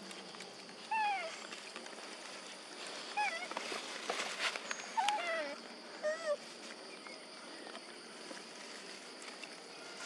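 Young long-tailed macaques giving short, high, squeaky calls that fall in pitch, four or five of them a second or two apart.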